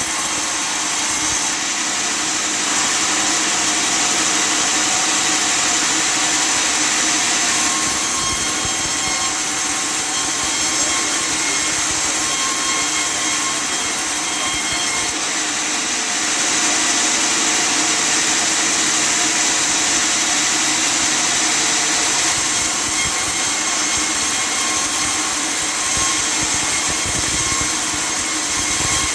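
Custom-made table sawmill running and cutting through wood: a loud, steady sawing noise whose tone shifts every several seconds as the cut goes on.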